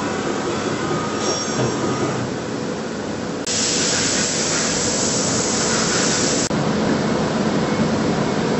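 Doosan DNM 650 vertical machining centre running with a steady mechanical noise. About three and a half seconds in, a loud hiss starts; it lasts about three seconds and cuts off suddenly.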